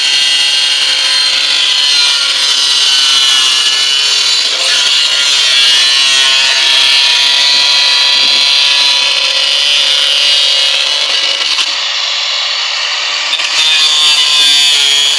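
Handheld electric angle grinder running at speed with its disc grinding into a large PVC pipe: a steady high whine with a rasping edge where the disc bites the plastic. About twelve seconds in it eases off for a second or so, then bites again.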